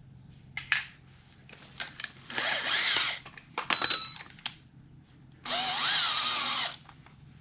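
Power drill spinning in two short bursts, the second about a second long with its motor pitch rising and then dropping. Between the bursts there is a quick run of rattling clicks.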